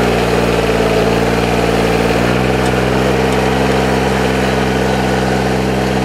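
Engine of a ride-on, rice-transplanter-style planting machine fitted with a seeder, running steadily as it sows beans, its note shifting slightly about two seconds in.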